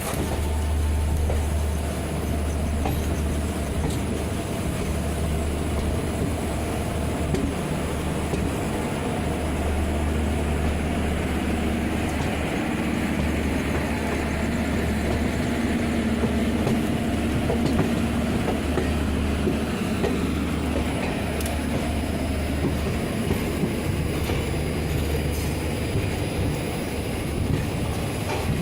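Passenger train coaches rolling into a station, a steady rumble of wheels on rail with a low pulsing drone.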